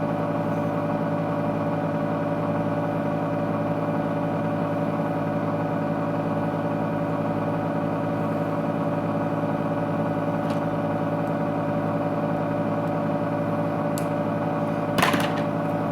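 A small electric motor running steadily with an even, unchanging hum, with a brief rustle near the end.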